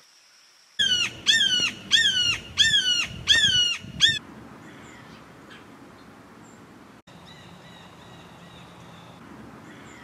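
Red-shouldered hawk giving a series of six loud calls, about one and a half a second, each note dropping in pitch. The calls stop about four seconds in, leaving faint outdoor background.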